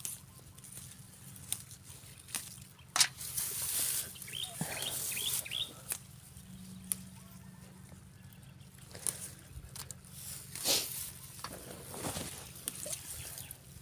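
Leaves and grass stems of chili plants rustling and brushing as hands pick through them, in short scattered bursts with a louder rustle near the end. A bird chirps about five quick times around the middle.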